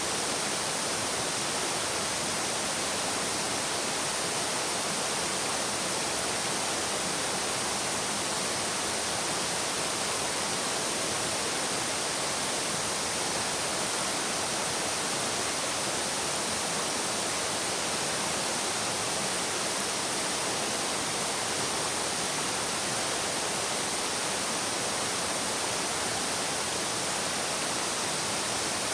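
Stream water babbling over stones, a steady, even rushing with no breaks.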